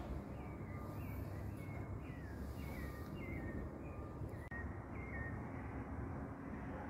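Bird chirping outdoors at night: a series of short chirps that slide downward in pitch, about two a second, over a steady low background rumble.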